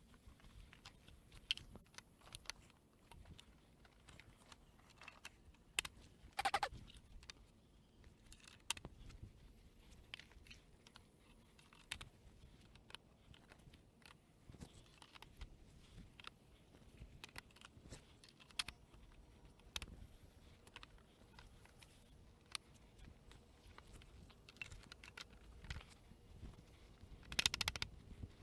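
Scattered clicks and knocks of composite raised-bed boards, plastic snap-lock brackets and stacking stakes being handled and fitted together at crossboard joints, with a louder run of knocks near the end.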